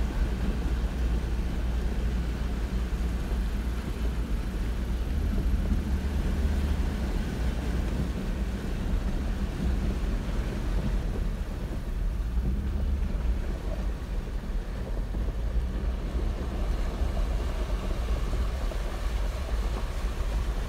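Jeep Wrangler Unlimited driving along a road covered in shallow floodwater, heard from inside the cab as a steady low rumble of engine and tyres.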